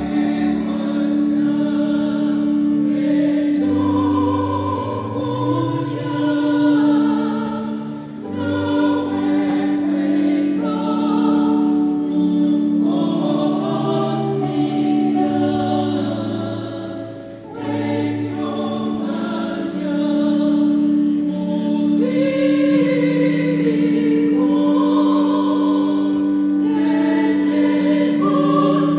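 Church choir singing a Luganda hymn, accompanied by saxophone and electronic keyboard, with a steady low note held underneath. The singing dips briefly between phrases about eight and seventeen seconds in.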